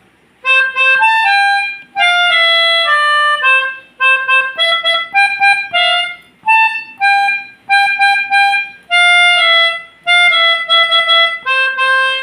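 Melodica (pianika) playing a bus 'telolet' horn tune: phrases of short held notes stepping up and down in pitch, with brief pauses between phrases, starting about half a second in.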